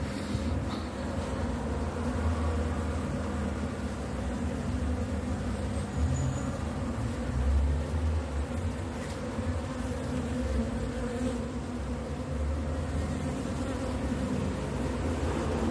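Honeybees buzzing steadily as they crawl and fly over an open hive's frames and pollen patties, with a low rumble that comes and goes underneath.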